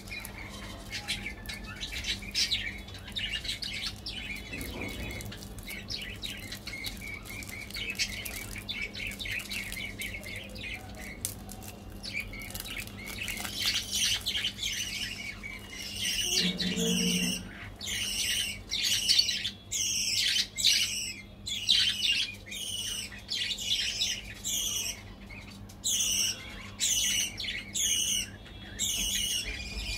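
Foil candy wrapper crinkling and crackling as a fun-size Snickers bar is unwrapped. Through the second half a bird chirps over and over in the background, about once a second.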